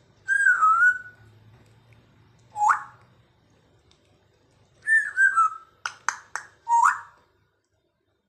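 African grey parrot whistling: a wavering whistle, then a quick rising whistle, a few short falling notes, three sharp clicks and a last rising whistle.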